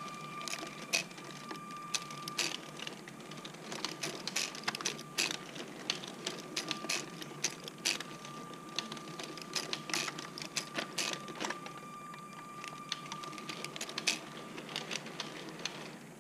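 LEGO TEE model train passing close by on plastic track: the wheels and cars click and rattle irregularly, many times a second, over a steady high motor whine. It all drops away near the end as the last car goes by.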